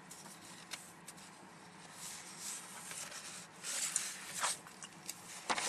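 Sheets of paper sliding and rustling as they are moved around on a desk, quiet at first, with the loudest rustle a little before four seconds in and a short sharp scrape near the end.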